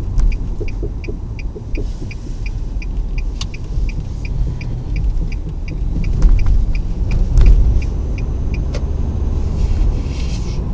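Car driving with steady road and engine rumble and a rhythmic knock, about three to four ticks a second, that has newly appeared while driving. A few sharper thuds come in over it. The knock is one that goes quiet under throttle and stops the moment the brakes are applied.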